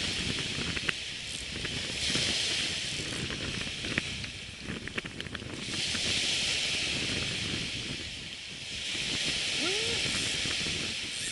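Surf on a sandy beach: waves washing in as hissing swells that rise and fade every few seconds, over a low wind rumble on the microphone, with a few light clicks about halfway through.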